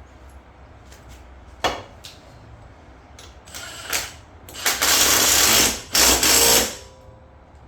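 Handheld power tool, an impact wrench, run in two bursts of about a second each, tightening a bolt on the mower. A single sharp click comes a little before them.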